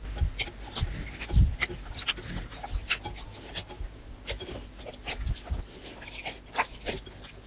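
Hands squeezing and kneading wet, freshly activated slime: a dense, irregular run of sticky clicks, crackles and squelches, with a few low thumps, the loudest about a second and a half in.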